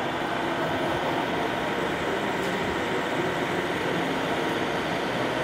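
Steady, even background din of a busy model-exhibition hall, with no single sound standing out.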